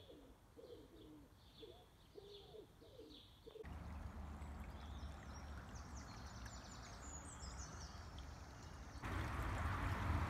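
A pigeon cooing in a repeated phrase, with small birds chirping. About three and a half seconds in this gives way to the steady rush of flowing river water swollen by rain, with a few high bird chirps; the rush grows louder near the end.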